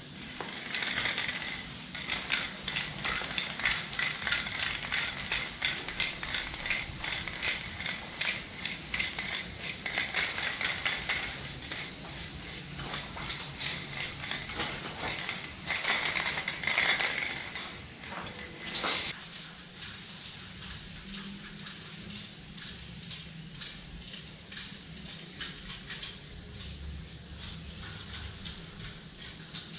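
Aerosol spray can of chrome (silver) paint hissing in many short, rapid bursts as a large letter is filled in on a wall. The bursts grow fainter about two-thirds of the way through.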